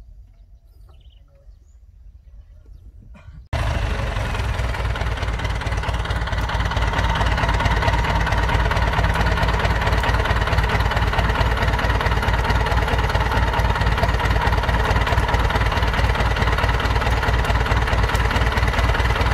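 A few quiet seconds, then about three and a half seconds in a close, loud Belarus 892 turbo-diesel tractor engine cuts in abruptly. It runs steadily with an even, fast pulsing beat.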